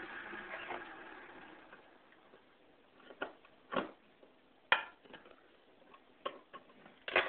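Can opener clicking and knocking against a can as it is worked onto the rim, about six separate clicks in the second half, the loudest about halfway through: the broken opener won't hook onto the rim.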